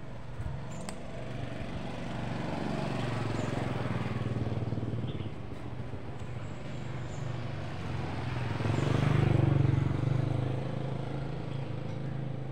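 An engine running with a steady low hum, swelling in loudness twice, most strongly about three-quarters of the way through.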